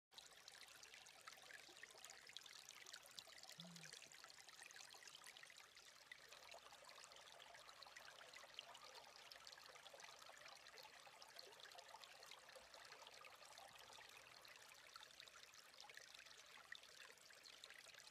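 Shallow creek water trickling and splashing over rocks, faint and steady.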